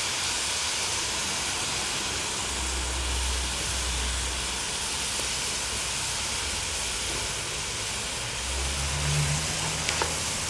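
Diced vegetables and tomato paste sizzling steadily as they roast in a Dutch oven. A low rumble comes in twice, from about two and a half seconds in and again near the end.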